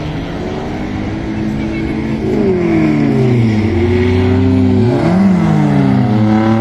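Several rear-wheel-drive folk-race cars' engines revving as they race. Their pitch falls and climbs again through gear changes and corners, and the sound grows louder about two seconds in.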